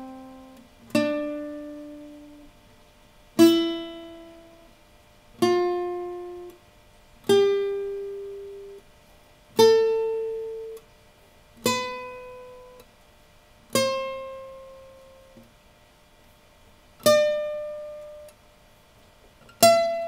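Single notes plucked on a string instrument, one about every two seconds, each ringing and fading. They climb step by step up a scale from low to high.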